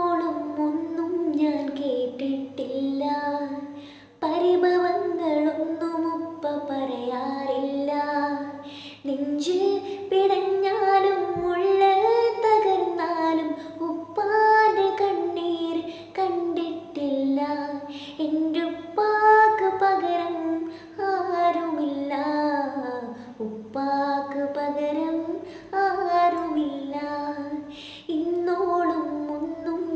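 A high voice singing a song in flowing melodic phrases, with short breaks between lines.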